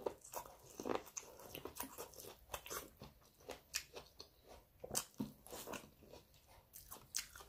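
A person eating close to the microphone: faint, irregular bites and chewing, a quick run of short mouth clicks throughout.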